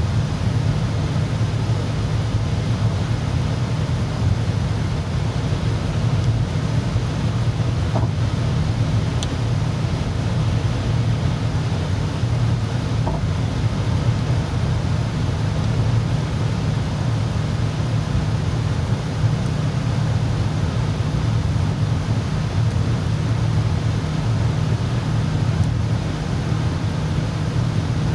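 Steady road and engine noise inside a car cruising on a motorway: a low, even drone with tyre hiss.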